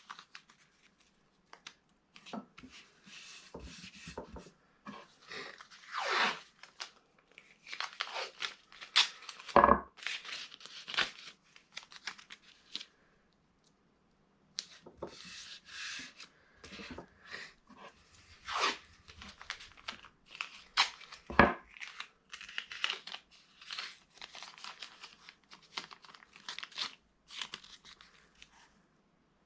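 Masking tape being pulled off the roll, torn and pressed onto a wooden cutting board, in short irregular rips and crinkles with a brief pause about halfway through.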